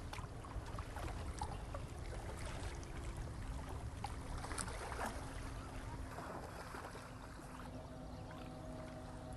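Seawater splashing and lapping: many small irregular splashes over a low rumble, with a faint steady hum underneath.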